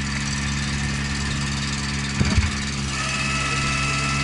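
A small machine's engine idling steadily, with a short clunk about two seconds in and a thin high whine joining about three seconds in.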